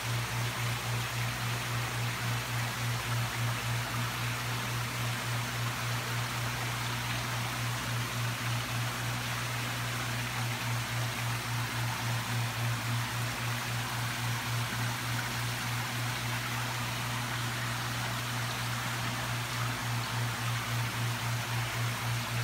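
Steady low mechanical hum that pulses evenly about three times a second, under a constant hiss like running water.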